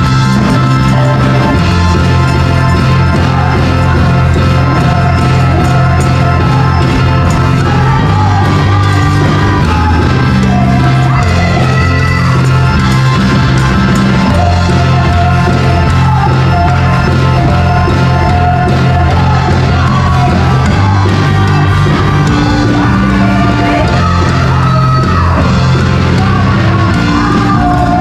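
Live praise-and-worship music: a women's vocal group singing an upbeat song into microphones over a band with a steady bass line. It is loud and amplified.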